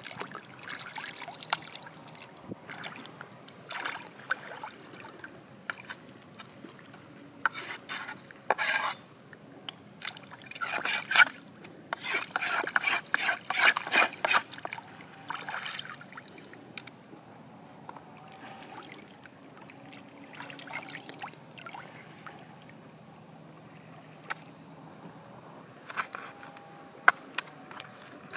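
Water splashing and sloshing in irregular bursts as a wooden cutting board and knife are rinsed in shallow seawater, busiest through the middle. A few sharp knocks come near the end.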